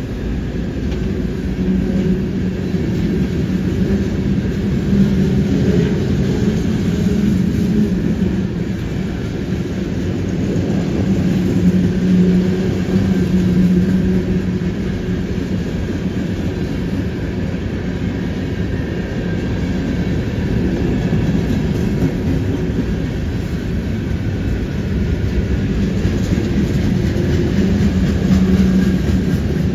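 Freight cars of a Canadian National train rolling past: a steady rumble of steel wheels on the rails, with a low hum that swells and fades a few times as the cars go by.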